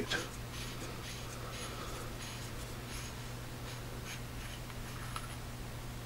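Faint handling of a metal flashlight head: light rubbing and a few small ticks as it is turned in the hands, over a steady low hum.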